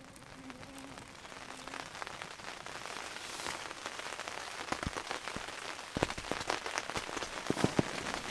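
Rain pattering and getting steadily heavier, with loud sharp drop hits from about five seconds in.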